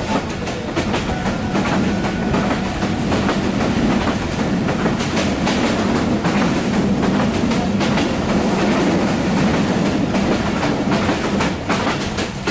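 Passenger train running, heard from inside the coach: a steady low rumble with the repeated clack of the wheels over the rail joints.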